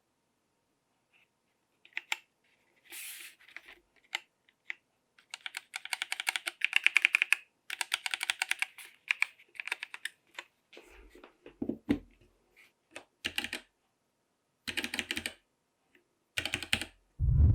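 Typing on a Womier K66 mechanical keyboard with Gateron red switches: bursts of rapid key clacks with short pauses between them. A loud rumbling burst cuts in at the very end.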